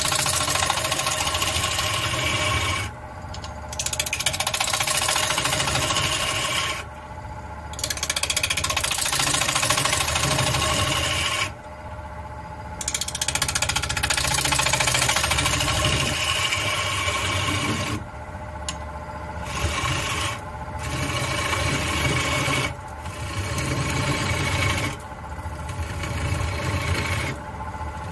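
Wood lathe spinning a black walnut bowl blank while a bowl gouge cuts into it, in passes of several seconds of scraping, hissing cutting noise broken by short pauses, with the lathe's steady hum underneath.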